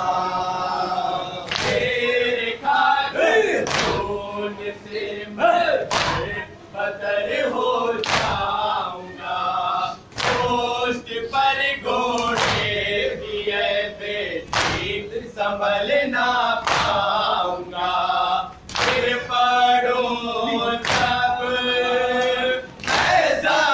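Men chanting a Muharram mourning lament (nauha) in unison, with a collective chest-beating (matam) strike about every two seconds keeping the beat.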